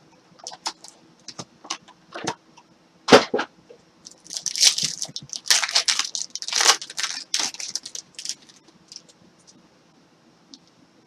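A trading-card box's packaging being worked open by hand: scattered clicks, a sharp crack about three seconds in, then several seconds of crinkling and tearing.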